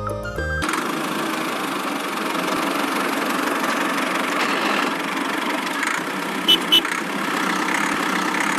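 A small motor running steadily, as if idling, once the music cuts off about half a second in. Two short high beeps come about six and a half seconds in.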